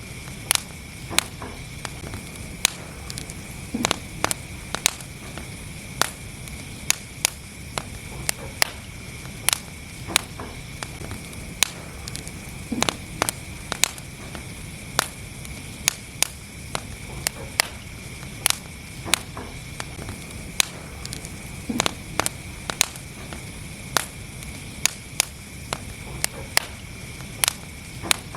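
Wood fire burning in a fireplace: a steady low rush of flames with irregular sharp crackles and pops, several a second.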